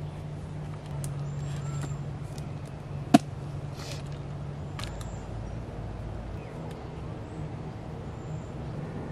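Steady low hum of a distant motor, with one sharp click about three seconds in.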